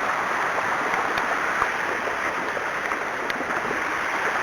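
Steady rushing, watery hiss of rain and wet ground as a horse is ridden through standing water, with a few faint knocks, likely its hooves.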